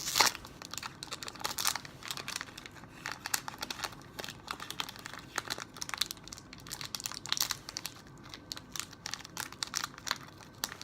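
Crinkly snack wrapper being crumpled and torn open by hand in irregular crackles. The wrapper belongs to a chocolate-glazed curd snack (syrok).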